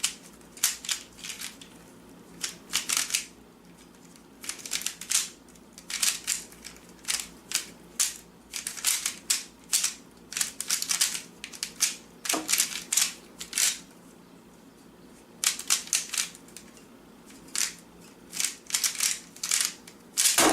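A Rubik's Cube being handled: irregular clusters of short, sharp plastic clicks and rasps, with brief pauses between the bursts.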